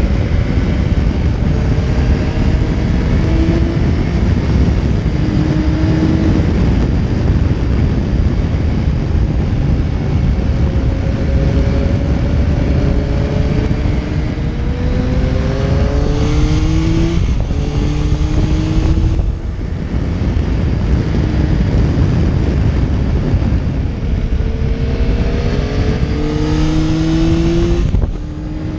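Motorcycle engine pulling hard under heavy wind noise, its pitch rising in two long runs of acceleration. Each run ends in a sudden drop as the throttle is shut, once about two-thirds of the way through and again near the end.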